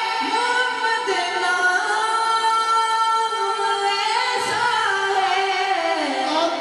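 A male naat reciter singing unaccompanied into a microphone, holding long drawn-out notes that slide slowly up and down in pitch.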